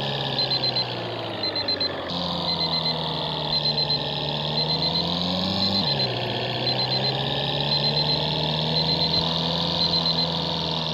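A vehicle's motor running, its pitch slowly rising and then dropping back about halfway through, under a repeating electronic beeping: a quick group of short high beeps about once a second.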